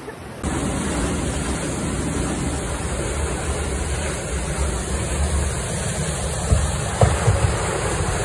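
Whitewater rapids rushing through a narrow rock gorge, a steady roar that jumps louder about half a second in. Near the end come a few sharper splashes as a kayak drops over a ledge into the foam.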